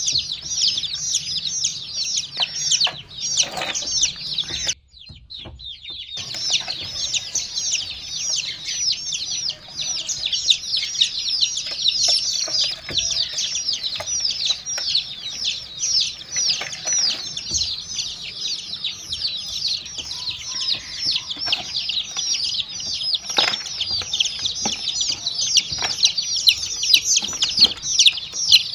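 Many baby chicks peeping nonstop, lots of short, high, falling chirps overlapping, with a brief break about five seconds in.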